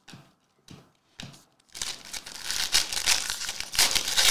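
A few soft clicks, then from about a second and a half in, a plastic wrapper crinkling and tearing continuously as hands pull it open.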